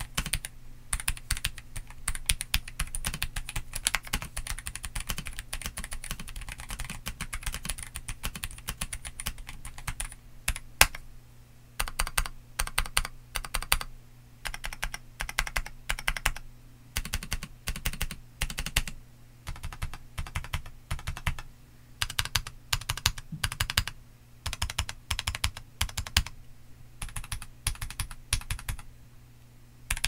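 Typing on a MelGeek Modern97 mechanical keyboard with Kailh Box Tactile switches and DS ABS MCR-profile keycaps. Fast, steady typing runs for about ten seconds, then breaks into short bursts of keystrokes with brief pauses between them, over a faint steady low hum.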